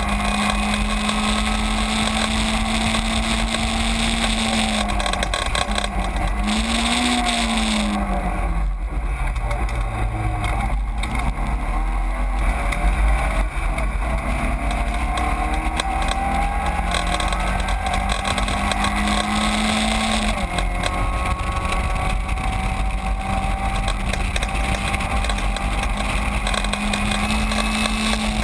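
Caterham 7 race car's engine heard from the open cockpit, running at high revs down a straight. About five seconds in the revs fall, with a brief rise and fall, and drop low under braking for a corner; from about twelve seconds they climb steadily back and hold high near the end.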